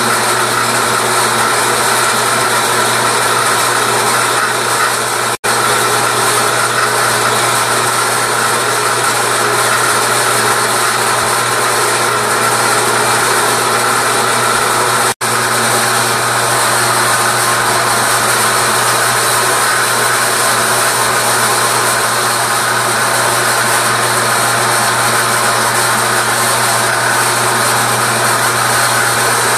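Bandsaw running with a fine-toothed metal-cutting blade, cutting round wooden discs of plywood and pine, a steady loud machine sound. The sound drops out briefly twice.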